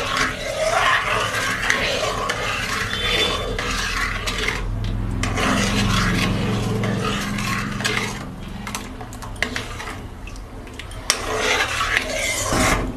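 Steel spoon stirring and scraping around a metal wok (karai) of milk, metal rubbing on metal, as the milk is stirred and boiled down into khir.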